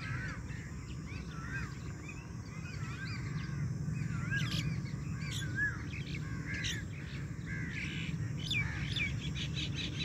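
Many birds chirping and calling at once, short rising-and-falling chirps overlapping all the time, over a steady low background rumble.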